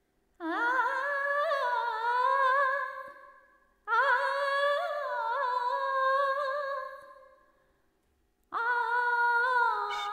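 Three long, wavering high notes of wordless music, each sliding up at its start and held for about three seconds; the first two fade out, and the third runs into the start of a tune with plucked or struck beats.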